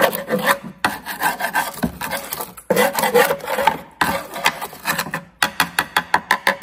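Scraping and rasping against the flaking underbody protection coating on the underside of a BMW E46, in uneven strokes that turn into a quick run of short scrapes, about six a second, near the end.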